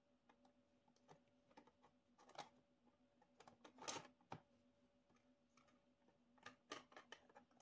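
Faint clicks and taps of acrylic light-shield panels being handled and hooked onto a small acrylic ant nest, the loudest about halfway through and a few more near the end, over a faint steady hum.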